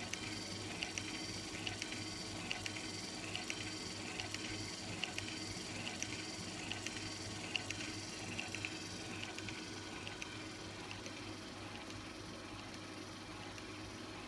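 Small DC gear motor running steadily, driving a crank-and-slider fatigue tester through repeated compression strokes on a 3D-printed elastic part, with a regular light clicking from the mechanism on each cycle. The clicks grow fainter in the last few seconds.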